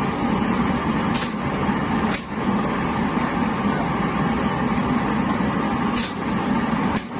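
Lottery drawing machine running with a steady, noisy hum, broken by four short sharp clicks.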